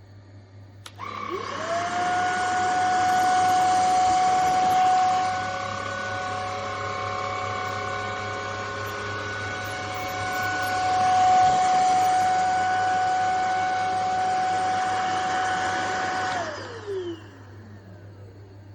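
Stanew cordless handheld vacuum cleaner switched on with a click about a second in. Its motor whines up to speed and runs steadily with a rush of air for about fifteen seconds, then is switched off and winds down, the pitch falling, near the end.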